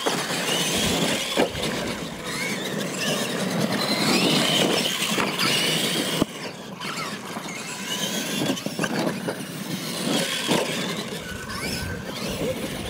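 Radio-controlled monster trucks racing on a dirt track: their electric motors and gears whine, rising and falling in pitch with the throttle, over a rumble of big tyres on loose dirt, with a brief break about six seconds in.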